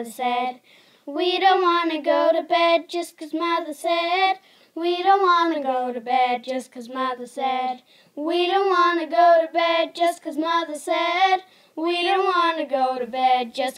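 A child singing, in four phrases of about three seconds each with short breaks between them.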